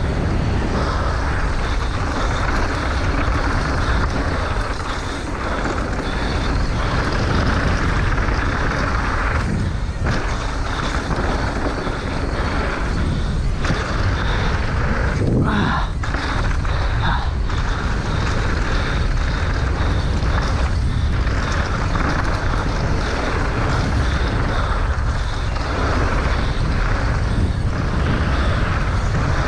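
Wind buffeting the microphone over the rattle of a downhill mountain bike running down a dirt trail, with a few sharper knocks about halfway through.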